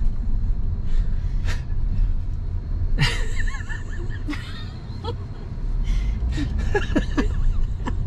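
People laughing and chuckling inside a moving car, over the steady low rumble of road and engine noise in the cabin.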